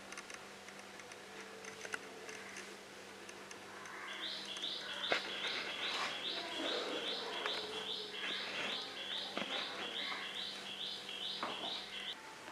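A bird chirping over and over, a short rising call repeated about two or three times a second, starting about four seconds in, over a low steady hum and a few faint clicks.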